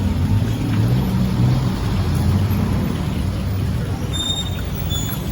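Street traffic: vehicle engines running steadily, with a few short high-pitched squeaks near the end.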